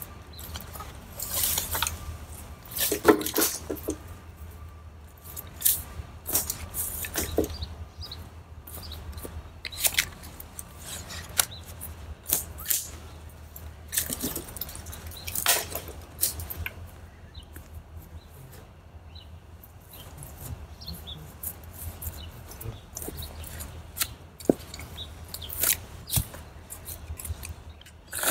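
Irregular snaps, crackles and rustling of dry branches and wood debris, over a faint low steady hum.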